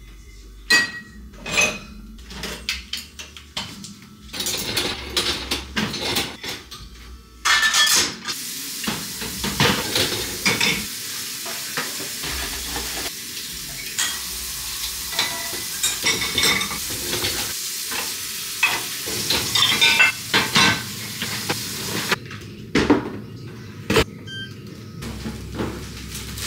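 Dishes, glasses and cutlery clinking and the dishwasher's racks rattling as a dishwasher is unloaded by hand. A steady hiss runs under the clinks from about a quarter of the way in until near the end.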